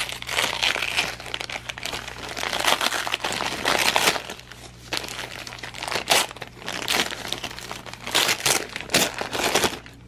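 Gift wrapping paper crinkling and crumpling as hands handle and unwrap a present, with sharper crackles and rips as the paper is torn open, in irregular bursts.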